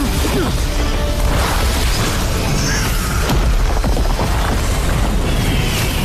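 Dramatic background music under a dense layer of explosion and impact sound effects: repeated booms and crashes.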